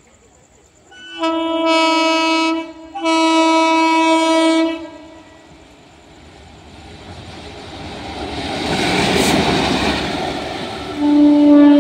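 Indian Railways WAG-9 electric locomotive sounding two long, steady horn blasts as it approaches, then running through the station at speed, its wheels' rush growing to a peak as it passes close by. A third horn blast starts near the end.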